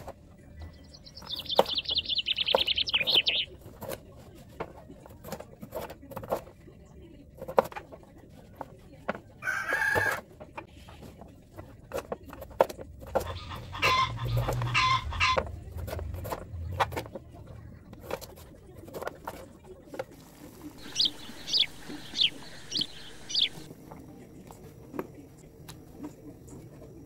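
A knife cuts through raw potatoes onto a plastic cutting board in a series of sharp knocks. Chickens cluck and a rooster crows in the background, and there are quick bird chirps about two-thirds of the way in.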